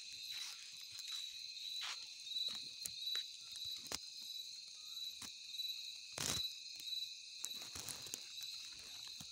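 Night insect chorus: a steady high-pitched trill without pause, with a few sharp knocks on top, the loudest about six seconds in.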